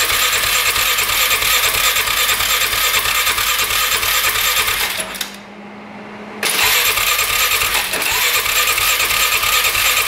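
1995 Polaris Magnum 425's single-cylinder four-stroke engine cranking over on its electric starter without firing, with an even chugging beat over the starter whine. Two cranking runs of about five seconds each, with a short break about halfway. The engine is being cranked to see whether the fuel pump delivers gas, and none comes yet.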